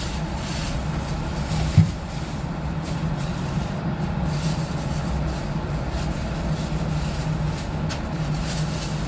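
Steady low machine hum, even in level, with a single short low knock just under two seconds in.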